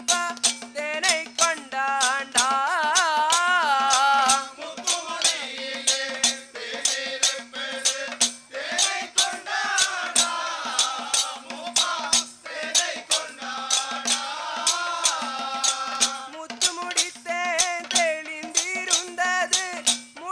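Kanniyarkali folk music: singing with a wavering melody over a low steady held note, driven by frequent sharp percussion strikes and a rattling jingle.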